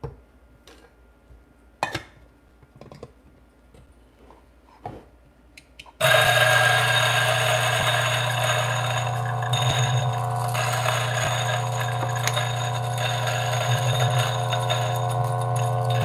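A few light clicks and taps, then about six seconds in a DF64 flat-burr coffee grinder starts and runs steadily with a strong low motor hum, grinding a 19 g single dose of beans.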